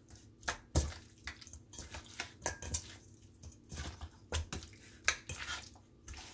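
Hands working raw pork chops coated in mustard and seasoning in a stainless steel bowl: irregular wet squelches and slaps of meat against the metal.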